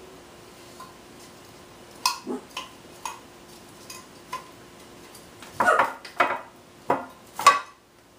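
Kitchen dishes and utensils clinking and clattering: a few light knocks at first, then a busier run of clatters in the last few seconds, the loudest near the end.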